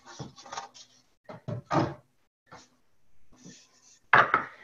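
Wooden boards knocking and clattering as they are lifted, moved and set down: a run of separate dull clunks, the loudest near the end.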